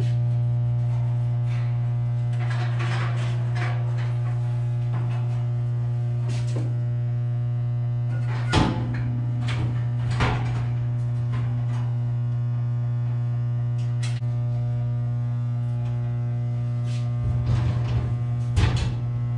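Steady low electrical mains hum from energized switchgear, with scattered metallic clanks and knocks as a steel electrical-panel cover is handled and fitted back on; a sharp knock about eight and a half seconds in and a cluster of knocks near the end as the panel is closed.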